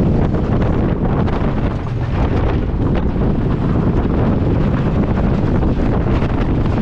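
Wind rushing and buffeting the microphone over the steady rumble of a Rocky Mountain Construction wooden roller coaster train running at speed on its steel-topped track.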